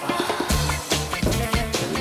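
Upbeat background music with a bouncing bass line and a steady drum beat.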